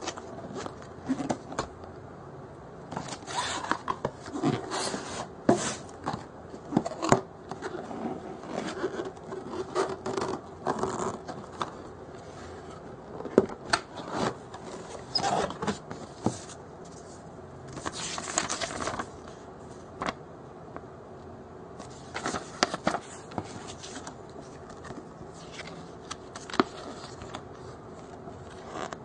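Packaging being handled and opened: irregular rustling, scraping and clicking, with a few longer scraping or tearing sounds, the longest about 18 seconds in.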